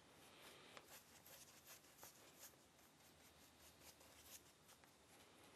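Very faint, irregular light strokes of a paintbrush dabbing and drawing paint across a cork goose decoy, close to silence.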